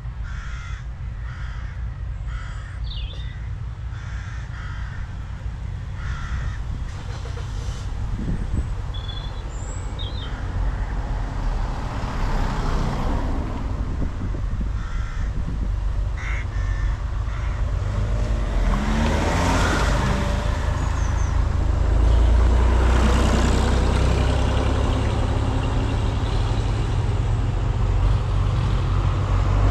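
Diesel engine of a John Deere tractor approaching along the lane, growing steadily louder, with a change in engine note about two-thirds of the way through. A bird caws repeatedly in the first few seconds.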